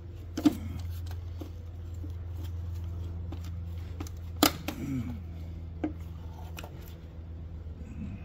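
Hand tools and loosened engine parts clicking and knocking as the top of the engine is taken apart. There are two sharp knocks, about half a second in and about four and a half seconds in, with lighter taps between them, over a steady low hum.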